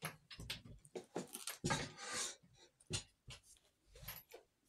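Close-up eating sounds: a mouthful of food being chewed with lip smacks, and fingers working rice on the plate, heard as a string of irregular wet clicks with a longer rustle about two seconds in.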